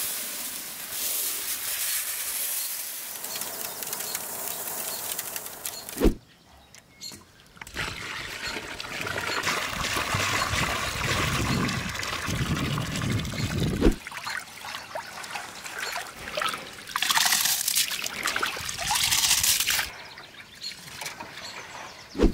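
Dry rice grains pouring with a steady hiss into water in a large aluminium basin. Then water is poured onto the rice and the rice is swished by hand to wash it, with splashes and trickling.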